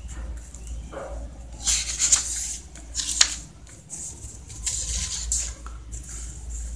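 Handling noise as the paper sheets and the handheld camera are moved: soft rustling and rubbing in several short spells, with a sharp click about three seconds in, over a low steady hum.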